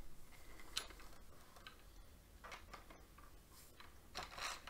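Faint, scattered clicks and taps from the parts of a breakdown bullpup pellet carbine being handled and fitted together, with a few closer clicks near the end.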